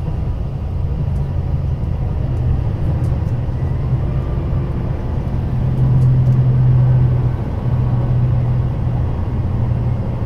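JR Shikoku 2700 series diesel limited express running, heard from inside the passenger car: a steady low drone of engine and rail noise, which swells louder for a second or so about six seconds in.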